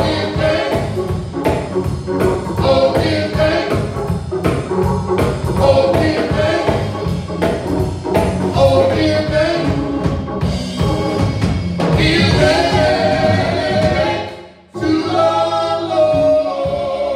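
Gospel praise singing by a small group of voices with instrumental accompaniment and a steady beat. Near the end the music cuts out for a moment, then comes back on long held notes.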